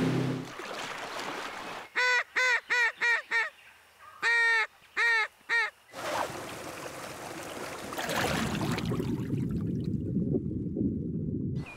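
Geese honking, a quick run of five honks and then three more after a short pause. The honks are followed by the steady rush of a rocky stream. A boat motor's hum cuts off just after the start.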